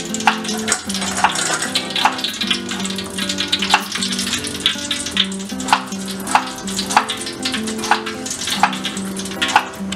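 Hot oil sizzling in a wok as fried tofu and potato cubes are drained in a wire spider strainer, with sharp metallic taps a little under a second apart. Background music with a melody plays under it.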